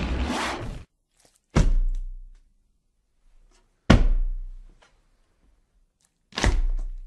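Four heavy impact thuds, each with a low boom that fades out over about a second, spaced a couple of seconds apart. The first is rougher and cuts off abruptly.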